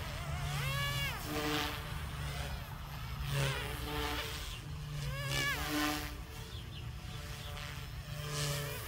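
Goosky S2 RC helicopter in flight: its electric motor and rotor whine, sweeping up and back down in pitch twice as the throttle changes.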